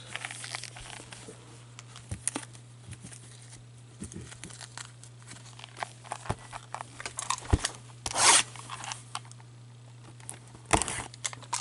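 Plastic shrink wrap on a sealed hockey card hobby box crinkling and tearing as it is handled and cut open. There are scattered clicks and rustles, a louder rip a little after eight seconds and a faint steady low hum underneath.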